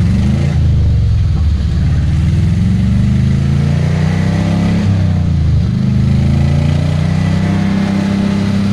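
Suzuki Carry pickup's engine heard from inside the cab while accelerating through the gears: the engine note climbs, drops at a gear change about five seconds in, then climbs again.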